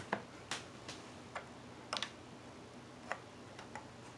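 Faint, light clicks and ticks, about ten of them scattered irregularly, over a quiet room background.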